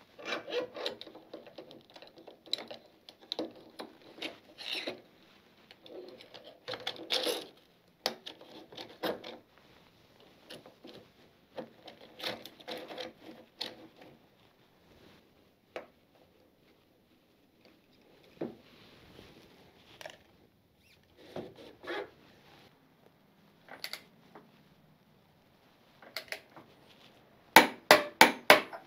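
Metal parts being handled as Yamaha R1 front fork legs are slid back up through the yoke clamps: scattered scraping, rubbing and knocks. Near the end comes a quick run of sharp clicks as a torque wrench is worked on the top stem nut.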